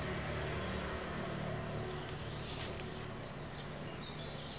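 Outdoor rural ambience: a faint steady insect drone over a low hum, with a few light clicks.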